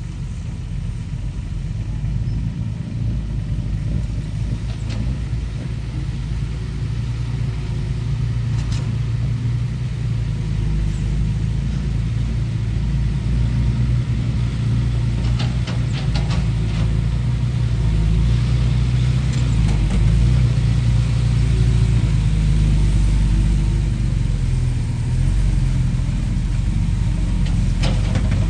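Heavy vehicle engine running with a steady low rumble that grows gradually louder, with a few brief knocks near the middle and near the end.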